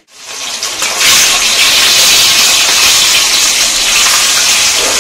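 Fish steaks sizzling as they shallow-fry in hot oil in a pan: a steady hiss that builds up over the first second and then holds.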